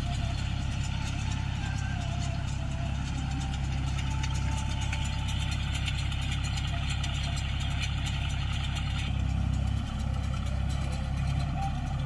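John Deere tractor's diesel engine running steadily as it pulls a baler through paddy stubble. A higher hiss in the sound drops away about nine seconds in.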